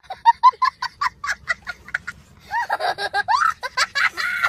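A young child laughing hard: a quick run of short, high laughs at about six a second, then longer squealing laughs that rise and fall in pitch.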